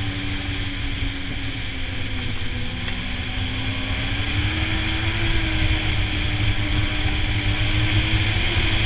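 Snowmobile engine running under way, its pitch dipping slightly and then climbing as it gathers speed, over a steady rushing noise that grows louder through the second half.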